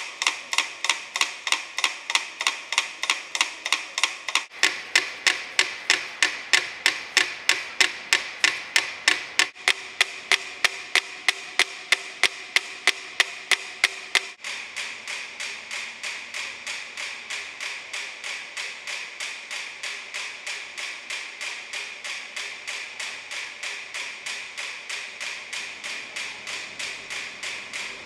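Several mechanical metronomes ticking: sharp wooden clicks, several a second. About 14 s in, the ticking suddenly turns softer and more evenly spaced.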